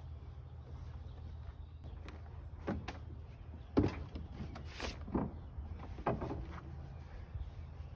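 Marine-fabric sail cover being handled as it is fitted: a handful of short rustles and knocks, the loudest about four seconds in, over a steady low hum.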